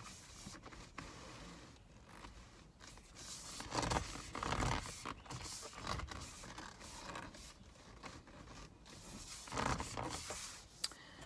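A stiff new steering wheel cover being stretched and worked onto a car's steering wheel by hand. It makes irregular rubbing and scraping sounds that come and go, loudest about four seconds in and again near the end.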